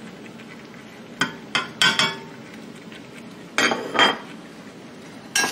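Several separate clinks and knocks of a plate and utensils against a metal cooking pot, some with a short ring, as seasoning is tipped in.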